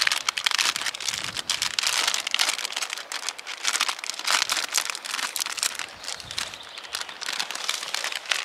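Plastic packet of fishing groundbait crinkling and rustling in the hands as it is worked open and tipped into a cut-down plastic bottle, a dense run of small crackles.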